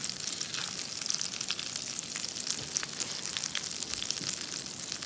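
Breaded sardines frying in foaming butter in a frying pan over high heat: a steady sizzle full of small pops and spits.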